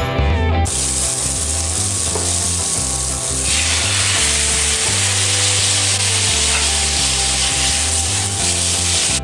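Stir-fry of shredded vegetables and mince sizzling in a hot nonstick wok while a spatula tosses it. About three and a half seconds in the sizzle grows louder and hissier as the noodles go into the wok. Background music plays faintly underneath.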